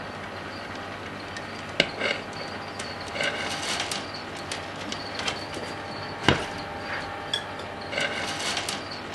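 Common snapping turtles clawing and scraping at the glass of their tank, with two sharp knocks as a shell or claw strikes the pane, over a steady background hum.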